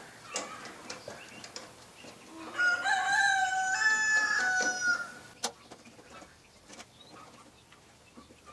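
A rooster crowing once, a call about two and a half seconds long in several held, stepped segments, starting about three seconds in. A few faint clicks and taps are heard around it.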